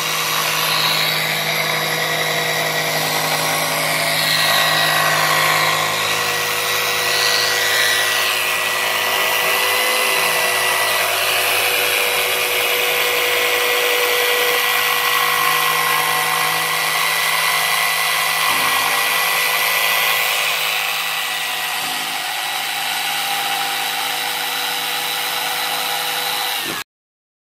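Corded electric jigsaw cutting through plywood, running steadily with a high motor whine over the blade's cutting noise. The sound cuts off suddenly near the end.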